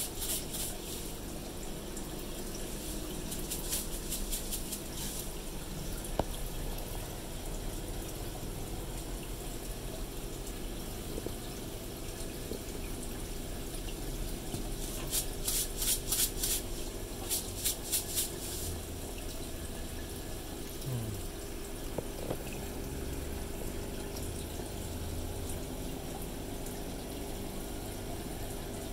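Aquarium air stone bubbling over a steady low hum from the tank's air pump and filter. Twice, a few seconds of quick bright crackling rises above it.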